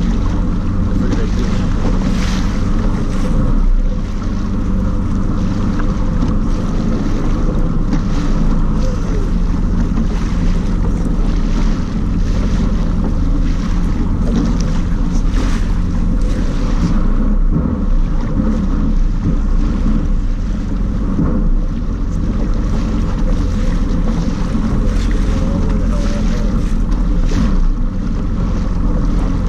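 Personal watercraft engine running steadily with a low, even hum, with water splashing at the hull and wind buffeting the microphone.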